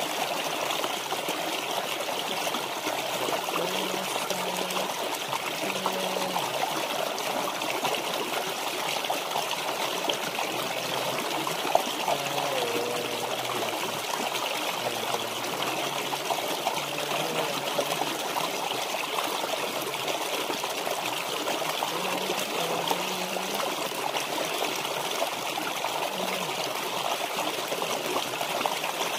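Shallow rocky stream flowing steadily, water trickling and babbling over stones, with one short click about twelve seconds in.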